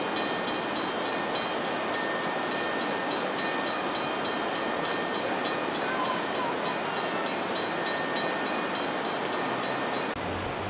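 Fast-flowing floodwater rushing, a steady loud noise without let-up. About ten seconds in it changes abruptly to a lower hum.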